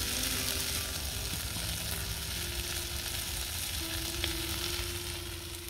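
Bacon and onion sizzling steadily in a hot frying pan, the sizzle easing off near the end.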